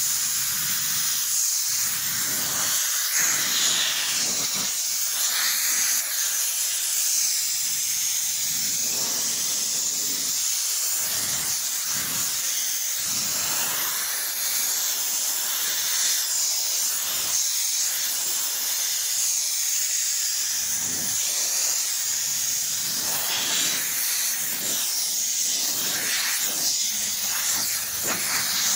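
Water running steadily from a hose over a car body panel during hand wet sanding of primer-filler, a continuous hiss. Over it come irregular rasping strokes of the sanding block on the wet surface.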